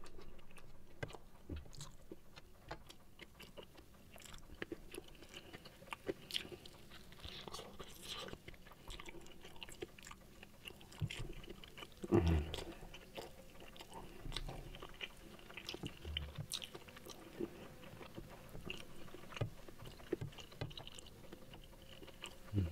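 A person chewing and biting food close to the microphone, a run of small wet mouth clicks and smacks, with a louder bite about twelve seconds in.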